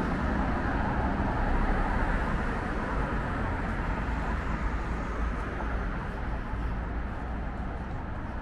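City street ambience: a steady wash of road-traffic noise with a low rumble. It swells about two seconds in and then slowly eases.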